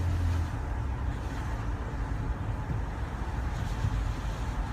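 Car driving slowly along a road: steady low engine and road rumble, with a low hum that drops away about half a second in.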